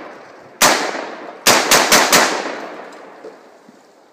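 Long-stroke piston AR-15 rifle fired five times: a single shot, then a quick string of four, each followed by an echo that dies away over about a second.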